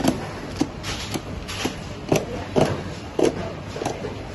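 Hand-held high-voltage tester probes clicking against the terminals of plastic RCCB circuit breakers packed in a crate, a sharp tap about every half second, over steady factory background noise.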